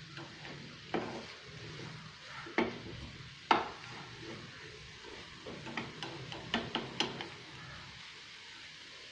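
Chicken being stirred in a frying pan on the stove. A utensil knocks and scrapes against the pan, with the loudest knock about three and a half seconds in and a quick run of knocks a little past the middle, over a low steady sizzle.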